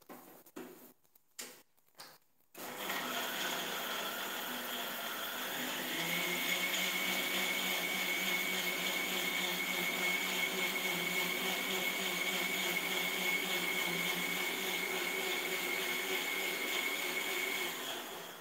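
A few short knocks, then an electric mixer grinder blending carrots: its motor whine climbs in pitch over the first few seconds, holds steady, and stops near the end.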